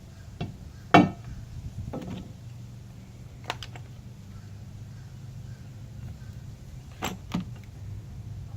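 Scattered clicks and knocks of hand tools and hardware being handled, one sharp click about a second in, over a low steady hum.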